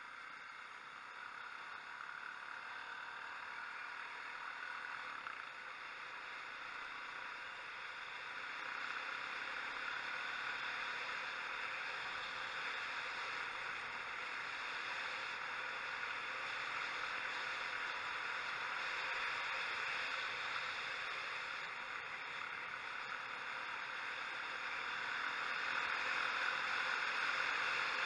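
Steady rush of wind noise over a helmet-mounted camera on a moving motorcycle, slowly growing louder as the ride goes on; no clear engine note stands out.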